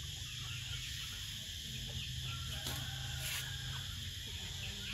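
Water sloshing in a plastic tub as a baby monkey paddles in it, with a couple of brief splashes a little past the middle. Under it runs a steady high-pitched outdoor drone and a low hum, with faint animal calls.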